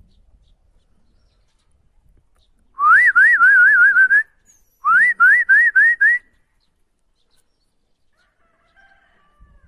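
A person whistling loudly close by: two short warbling phrases, each a quick rising note followed by a rapid up-and-down trill, a second or so apart.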